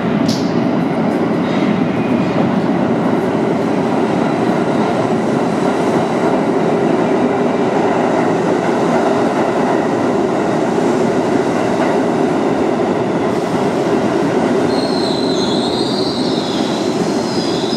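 New York City subway train running along the track in an underground station: a loud, steady rumble of wheels on rail, with high wheel squeal near the end.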